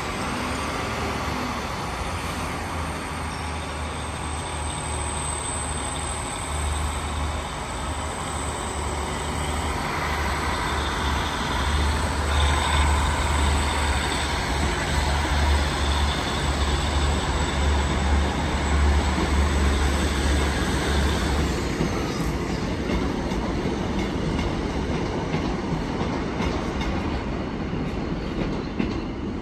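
ScotRail diesel multiple unit pulling away from the platform, its underfloor diesel engines throbbing under power with a high wheel squeal in the first half. The engine note grows louder in the middle, then drops away about three-quarters of the way through as the train draws off.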